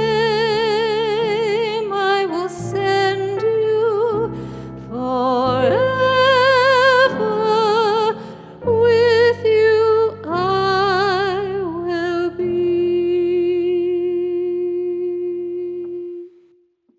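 A solo voice with a wide vibrato sings or hums a slow hymn melody without clear words over sustained low accompaniment chords. It ends on a long held note that fades out near the end.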